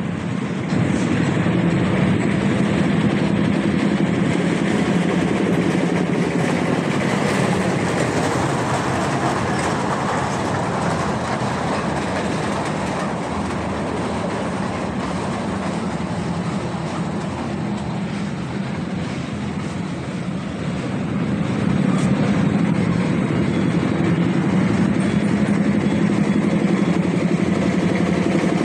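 Children's miniature ride train running along its small track: a steady motor hum with the wheels running on the rails, getting louder about three quarters of the way through as the train comes close.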